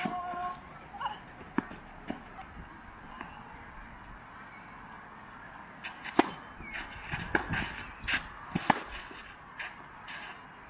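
Tennis balls struck by rackets on a clay court: a few sharp pops early on, then a serve about six seconds in and a rally of hits and bounces over the following seconds, with shoes scuffing on the clay between shots.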